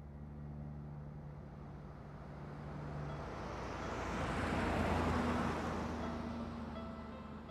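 A car passing by: its engine and tyre noise swells to a peak about five seconds in, then fades as it drives away.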